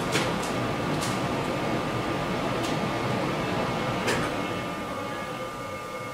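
Steady fan-like room hum with a thin steady tone above it. A handful of sharp ticks fall in the first four seconds, the loudest just after the start and about four seconds in.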